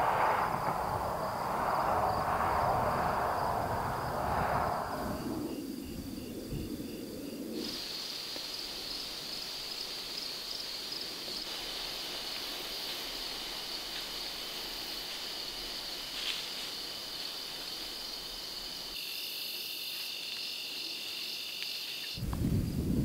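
Insects trilling steadily in high-pitched tones, with a second, lower trill joining near the end. During the first few seconds a louder rushing noise lies over them.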